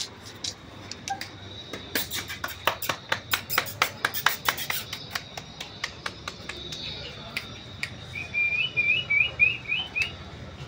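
Rapid light clicking and tapping of Shih Tzu puppies' claws and paws on a tiled floor as they scamper and play, densest in the first half. Near the end comes a quick run of about seven short high chirps.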